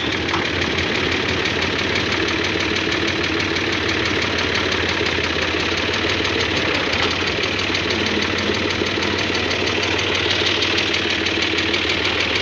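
Tractor's diesel engine running steadily at low speed, close by, with a fast even beat and no change in pace.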